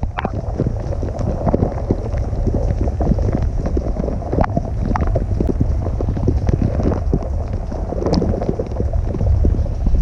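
Dishwasher wash cycle heard from inside the tub: water jets spraying steadily over the dishes and onto the camera, a dense spatter of small hits over a heavy low rumble.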